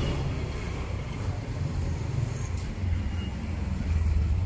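Street traffic: engine rumble from passing road vehicles, steady and low, swelling near the end.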